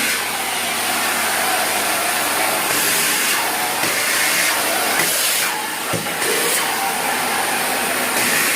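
Vacuum cleaner running, a steady rushing hiss whose tone shifts a few times as the nozzle is moved over the floor.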